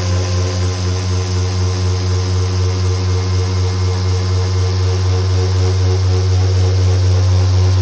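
CNC router spindle driving a free-running hook-and-loop sanding head over a wood slab: a steady machine hum with a slight regular pulsing.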